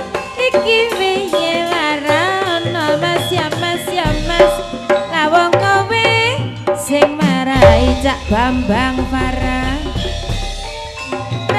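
Javanese gamelan music for a tayub dance: a singer's wavering melodic voice over pitched percussion and hand-drum strokes, with deeper low notes about four seconds in and again from about seven and a half seconds.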